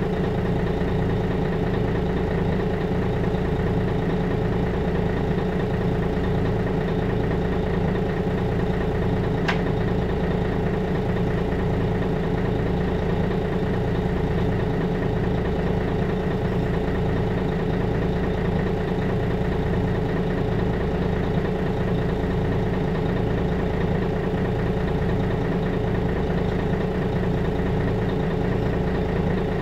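Mercedes-Benz O530G Citaro articulated bus engine running steadily at an even speed with a low, regular throb. A single brief click sounds about nine and a half seconds in.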